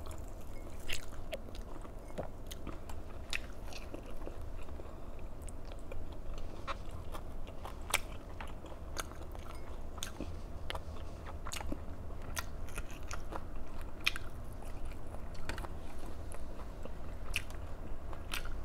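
A person chewing and biting food, with irregular small crunches and clicks throughout.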